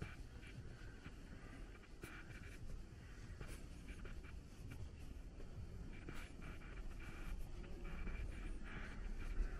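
Faint street ambience with a steady low rumble and scattered light scuffs and rustles, the sound of someone walking.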